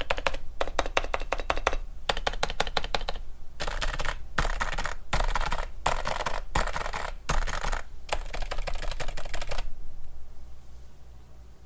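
Fast typing on a silenced Realforce R3 TKL keyboard with Topre electro-capacitive switches, stock apart from lightly lubed stabilizers. The keystrokes come in quick runs with short pauses and stop about ten seconds in.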